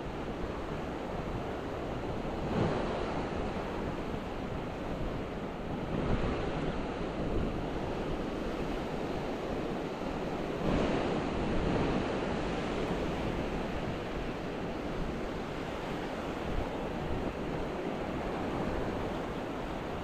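Ocean waves breaking and washing up on a sandy beach, surging every few seconds, the strongest wave about eleven seconds in, with some wind on the microphone.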